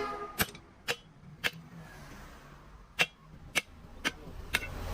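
A series of about seven short, sharp taps or knocks at uneven intervals, roughly half a second to a second and a half apart, over a faint low hum.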